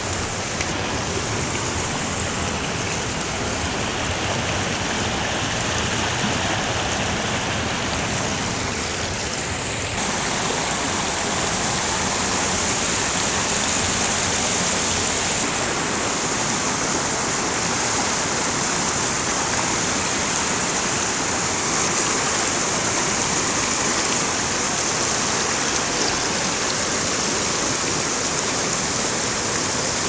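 Mountain river running over rocks and boulders: a steady rush of water that grows a little louder and brighter about ten seconds in.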